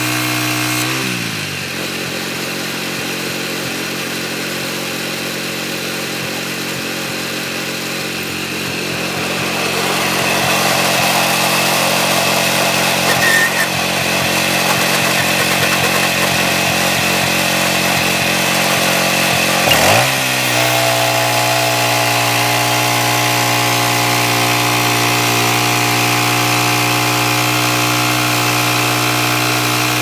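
The Kohler engine on a portable bandsaw mill drops from cutting speed to a lower, steady idle about a second in. It revs back up sharply about two-thirds of the way through and runs at full speed as the band blade cuts through a hemlock log.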